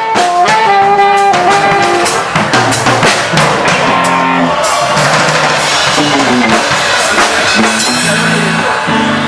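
Live band playing during a sound check: drum kit hits keep a steady beat under a melody line and a moving bass line.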